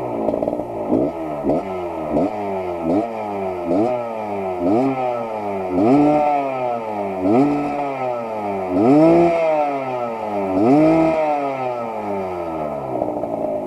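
Suzuki TS125 two-stroke single-cylinder motorcycle engine revved in repeated throttle blips. The blips come about once a second at first, then fewer, longer revs follow in the second half.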